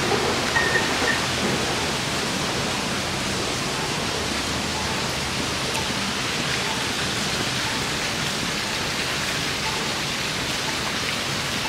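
Steady, even rushing of water falling and splashing from a landscaped rock-waterfall fountain.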